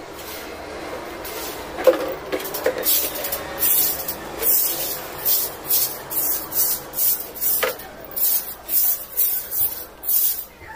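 Handheld broom sweeping a stone-tiled floor in quick short strokes, about two swishes a second. There is one sharp knock about two seconds in, before the sweeping starts.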